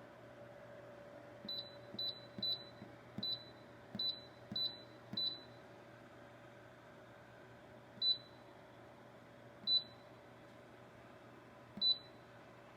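Electronic control panel of a SEEPER 3-in-1 evaporative cooler beeping as its buttons are pressed: seven short high beeps in quick succession, then three more spaced about two seconds apart, over a low steady hum.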